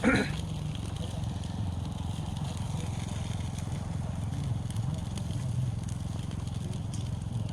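Pork intestines grilling over a wood-charcoal fire, the coals crackling faintly with a few soft pops, over a steady low rumble.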